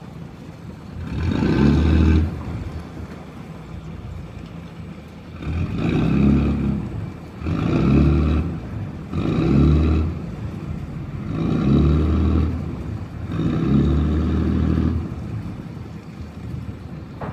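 Hino six-cylinder diesel engine of a wooden cargo boat idling, with the throttle opened six times in short bursts of a second or so.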